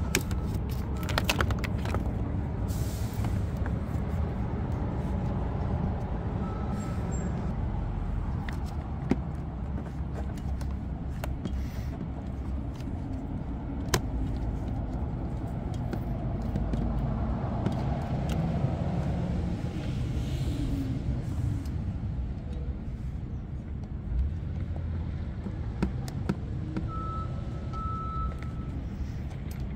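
Steady low outdoor rumble with scattered small clicks and taps as a small open-end wrench and plastic door-panel parts and wiring are handled; two sharper clicks stand out about 9 and 14 seconds in.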